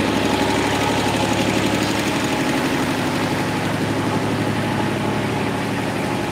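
An engine idling steadily, with an even, rapid pulsing throb.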